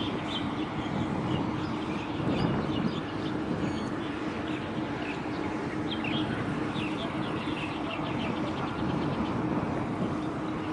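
Steady low mechanical drone with a held hum, with small birds chirping in short repeated calls over it.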